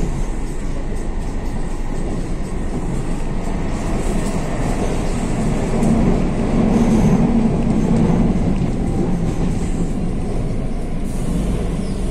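Madrid Metro Serie 5500 train running, heard from inside the car: a steady rumble of wheels and motors on the track that grows louder for a couple of seconds about halfway through.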